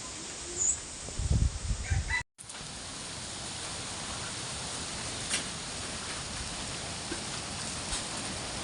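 Strong wind: gusts buffeting the microphone for about two seconds, then, after a brief cut, a steady rushing of wind.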